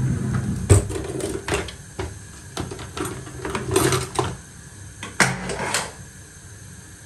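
Kitchen clatter: a run of irregular knocks and clinks of cookware and utensils being handled, stopping about six seconds in.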